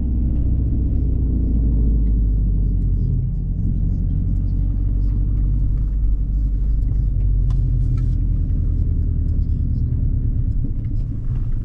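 A 2011 Subaru WRX's turbocharged flat-four engine, along with road noise, while the car is being driven: a steady low rumble that holds an even pitch.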